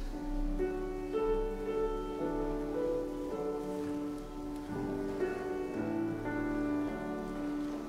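A keyboard instrument plays a hymn tune in slow, held chords with no singing. It is the instrumental continuation of the hymn just sung.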